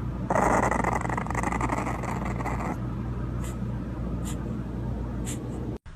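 Puppy sounds over a steady background hum and hiss, louder for the first few seconds, cutting off abruptly near the end.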